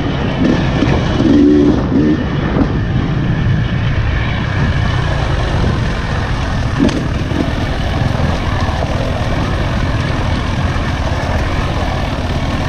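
Enduro dirt bike engine running under throttle on a forest trail, heard from the rider's helmet, with one sharp knock about seven seconds in.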